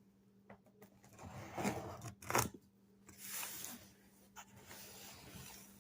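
Cardboard shipping box and its packing being handled: short scraping and rubbing rustles, with a sharp click about two and a half seconds in.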